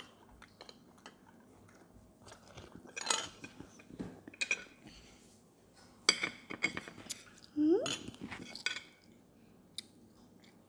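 Metal fork and spoon clinking and scraping against a plate, with chewing, in scattered bursts. A brief rising squeak, the loudest sound, comes about three-quarters of the way through.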